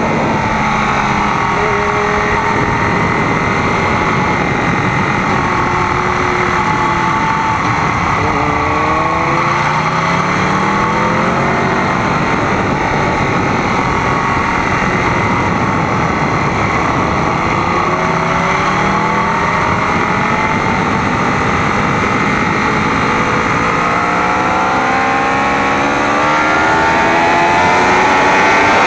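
Sport motorcycle engine heard from an onboard camera under heavy wind noise, its pitch climbing steeply through the gears several times, about a third of the way in, about two-thirds in and again near the end, and dropping back as the bike slows for corners.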